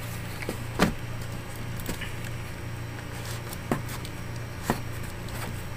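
Cardboard box packaging being handled: a few sharp knocks and taps, the loudest about a second in, over a steady low hum.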